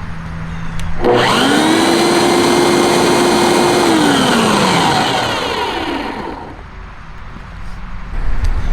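Sun Joe AJ801E electric dethatcher-scarifier switched on about a second in: the motor and scarifier reel spin up quickly to a steady whine, run for a few seconds, then are switched off and wind down, the whine falling and fading. It is a test spin of the freshly installed scarifier reel.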